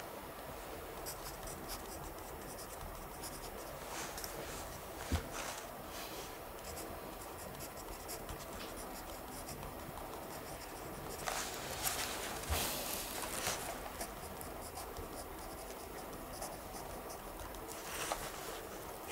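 Pen writing on paper in a notebook: light scratching strokes over steady room tone, with a stretch of louder, busier scratching past the middle and a single soft knock about five seconds in.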